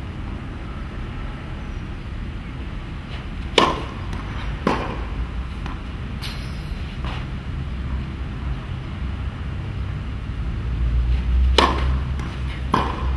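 Tennis ball being hit and bouncing on a clay court: two pairs of sharp pops about a second apart, a little over three seconds in and again near the end. A steady low rumble runs underneath.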